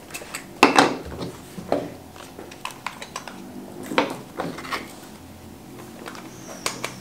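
Hard plastic lens caps and a mirrorless camera body being handled on a table: scattered sharp clicks and knocks as the body cap and rear lens cap are twisted off and set down, and the lens is twisted onto the camera's mount.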